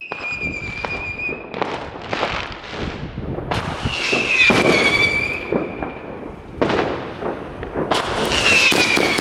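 Weco Night Howler firework battery firing 25 mm titanium howler shots over a steady hiss and crackle. There are three fairly deep-toned howls: one held near the start, then two that slowly fall in pitch, about four and about eight seconds in.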